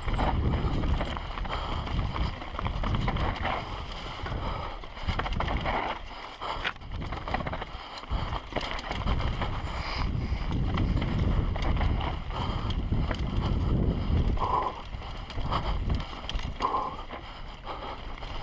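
Mountain bike descending a rough dirt and rock trail, heard from a helmet camera: wind buffeting the microphone over the rumble and rattle of tyres and frame on the ground, rising and falling with the terrain, with scattered knocks.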